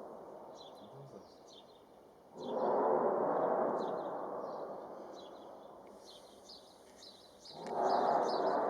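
Unexplained loud sound in the sky over the city, swelling suddenly and fading slowly over a few seconds, heard twice about five seconds apart. Small birds chirp throughout.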